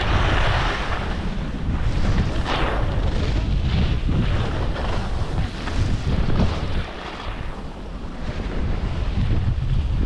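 Wind buffeting the microphone of a camera carried downhill on skis, with the hiss and scrape of skis sliding on packed snow. The rush eases briefly about seven seconds in, then picks up again.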